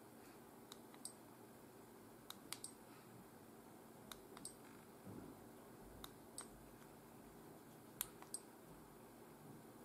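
Small plastic buttons on a Lamax X7.1 Naos action camera clicking as they are pressed to step through its menus: a dozen or so sharp little clicks, often in quick pairs, with short pauses between, over near-silent room tone.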